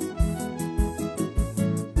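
Music of a Tanzanian church choir song, with a steady drum beat a little under two beats a second.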